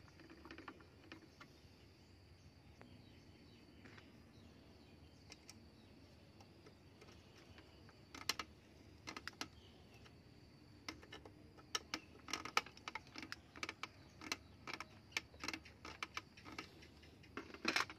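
Hand screwdriver driving wood screws through a small metal plate into a wooden spear-gun stock: a run of small, irregular clicks and scrapes, sparse at first and coming thick and fast in the second half.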